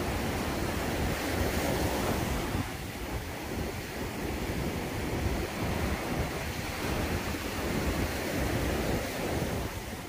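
Sea surf washing onto a rocky shore, rising and easing with the waves, with wind rumbling on the microphone.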